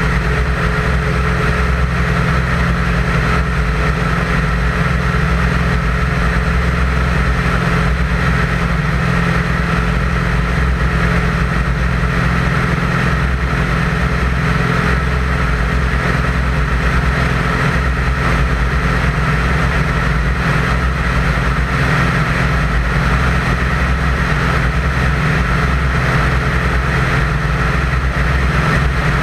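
Light twin-engine aircraft's wing-mounted piston engine and propeller in flight, a steady, unchanging drone with a low hum and a higher band of noise above it.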